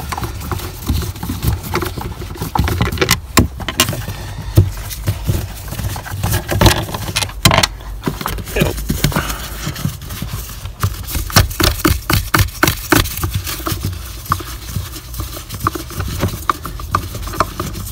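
Irregular clicks, knocks, scrapes and light rattles of hands undoing the hand-tightened screws of the boot-floor engine cover and handling the panel.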